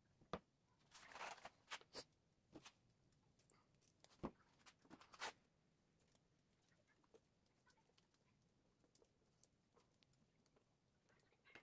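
Near silence broken by a few faint clicks and a short rustle in the first half: hands handling electrical wires and small connectors. It is almost silent after that.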